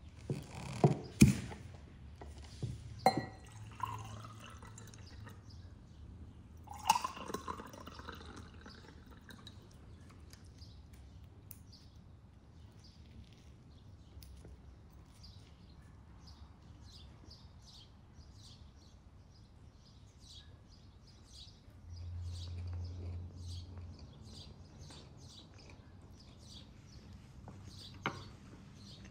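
Sharp clinks of glass and cutlery and a drink being poured from a glass bottle into glasses during the first several seconds, the loudest clinks about a second in. Then faint, rapid high chirping.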